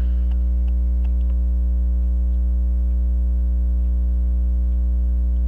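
Steady electrical mains hum with a low buzzy stack of overtones, and a few faint, irregular light ticks.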